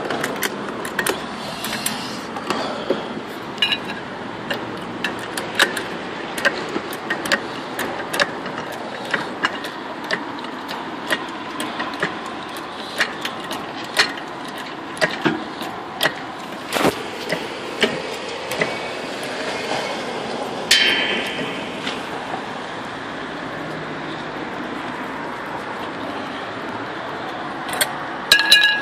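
Trolley jack being pumped to lift a car, with a sharp click about every half second from each pump stroke; the clicking stops about two-thirds of the way through.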